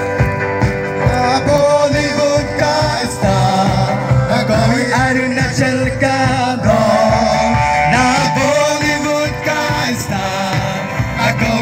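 A Christian worship song playing loudly, with singing over a drum beat.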